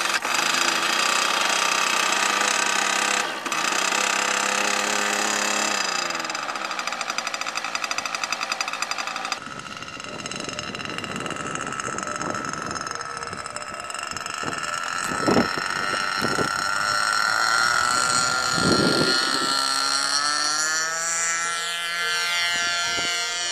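Small model-airplane engine running at high revs with a buzzing whine, its pitch dropping about six seconds in as the throttle comes back. Later the pitch swells and falls away as the model flies past.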